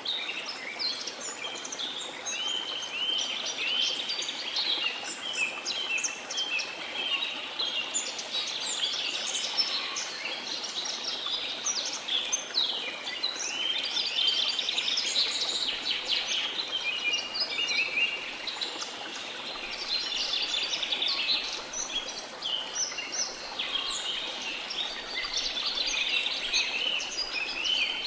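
Many birds chirping and singing constantly, with quick overlapping calls and whistles, over a steady rush of falling water.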